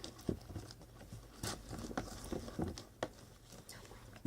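Slime being stirred in a bowl as borax solution is added to the glue mixture: irregular soft clicks and taps of the utensil and the sticky mixture.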